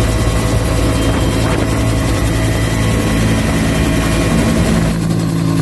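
Helicopter in flight heard from inside an open-door cabin: loud, steady rotor and engine noise with a low rumble and a constant whine on top.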